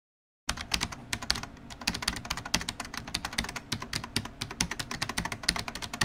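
Rapid typing on a computer keyboard: a fast, uneven run of key clicks that starts about half a second in and keeps going to the end.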